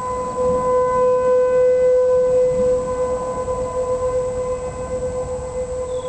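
Outdoor tornado warning siren sounding during a storm: one steady, unwavering tone that swells a little a second or so in and then slowly eases off.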